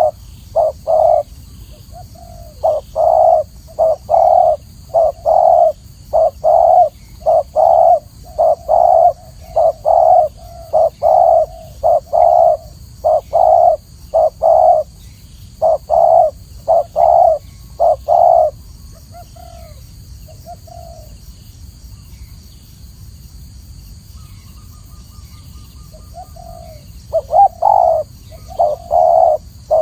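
Spotted dove cooing: runs of short, low coo notes repeated over and over, breaking off about two-thirds of the way through for several seconds with only a few faint notes, then starting again near the end. A steady hiss lies underneath.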